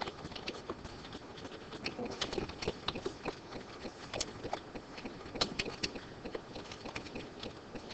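Typing on a computer keyboard: a string of irregular, quick key clicks.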